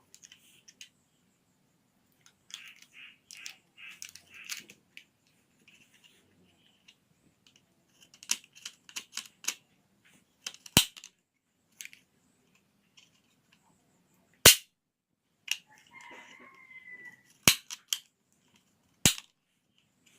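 Handling noise and sharp plastic clicks and snaps from a car phone holder being fitted and adjusted. Light clicking and rustling in the first half, then four loud snaps spaced a few seconds apart, with a brief squeak just before the third.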